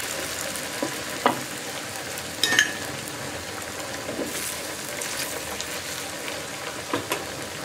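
Moshlai pitha (spiced rice-flour cakes) deep-frying in hot oil, a steady bubbling sizzle. A few sharp clicks of a slotted spoon against the pan come through as the cakes are turned.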